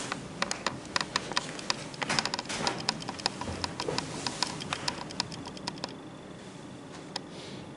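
A run of light, irregular clicks and taps, several a second, that thins out to a couple of isolated clicks after about six seconds.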